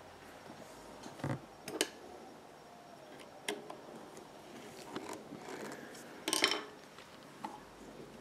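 A scattered series of small clicks and light metallic taps from fingers handling the needle and presser-foot area of a Pfaff 1245 industrial sewing machine, about six in all, the loudest about six seconds in.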